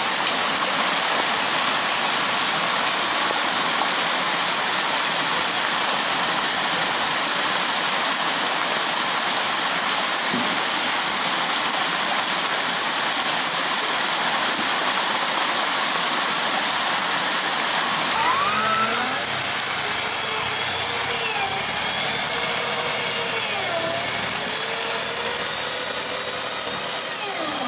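Off-road 4x4s wading a rocky forest stream: a steady rushing of water mixed with engine noise. About two-thirds of the way through, an engine starts revving up and down as a Land Rover Defender works along the muddy streambed.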